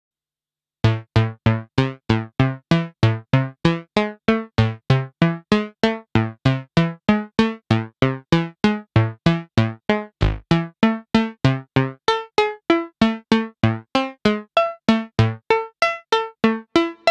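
Moog analog synthesizer playing a repeating sequence of short plucked notes, close to three a second, each note shifting in pitch. It starts after about a second of silence, and the tone grows brighter about twelve seconds in as the filter opens.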